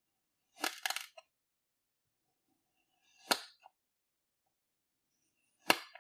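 A knife cutting through kinetic sand: a short crunchy cluster of clicks about half a second in, then two single sharp clicks, a few seconds apart, as the blade cuts through and meets the tabletop.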